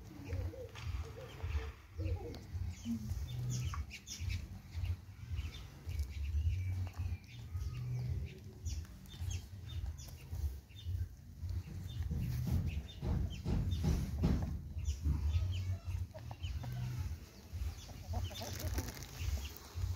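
Domestic hen clucking softly and making quick clicking pecks while she takes bread crumbs from a hand. An uneven low rumble sits under it throughout.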